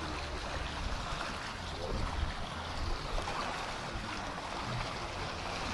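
Steady outdoor noise of wind and moving water, with wind rumbling on the microphone; the flood siren is not sounding.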